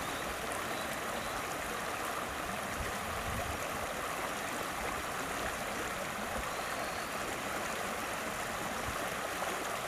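River water running steadily, an even rushing noise.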